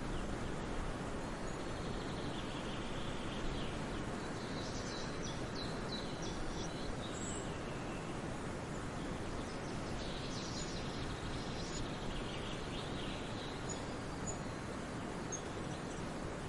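Songbirds singing in forest ambience: two spells of quick chirping phrases, the first from about two seconds in and the second from about ten seconds in, with a few short high chirps near the end, over a steady rushing background noise that is the loudest part.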